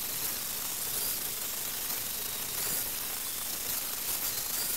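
Angle grinder with an abrasive disc grinding the metal hub of an old wooden cart wheel, a steady hissing grind with a faint high whine.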